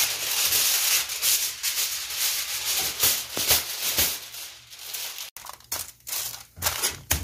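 Aluminium foil crinkling and rustling as a sheet is handled and folded around a large fish: dense crackling for about the first four seconds, then sparser separate crinkles as the parcel is pressed down.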